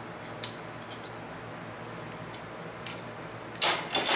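A few small metal clicks as a wrench and pliers tighten a bolt and nut against a drilled steel disk, then a louder metal clatter about three and a half seconds in as the hand tools are handled on the steel bench.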